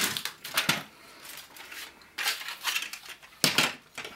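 Hard plastic toy fire engine parts clacking and rattling as they are handled on a workbench: a handful of sharp knocks spread over a few seconds.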